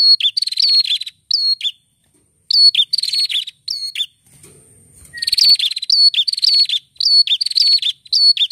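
Ashy tailorbird, the 'red-headed prenjak' of Indonesian bird keepers, singing loudly and persistently: short phrases, each a sharp upslurred whistle followed by a dry buzzing trill, repeated about twice a second. The song breaks off briefly about two seconds in, and again around four to five seconds in under a faint low rustle, then resumes at the same pace.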